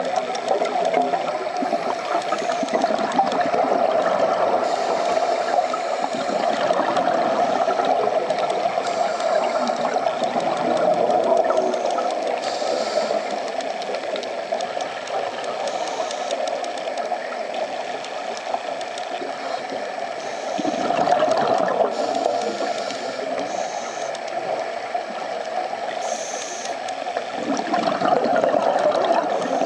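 Underwater bubbling and gurgling of scuba divers' exhaled air and regulator breathing. It is continuous, swelling louder twice: about two-thirds through and again near the end.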